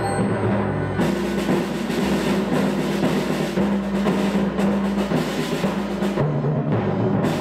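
Elementary-school percussion ensemble playing a piece: drums and mallet percussion over held low bass notes, the drumming growing fuller about a second in.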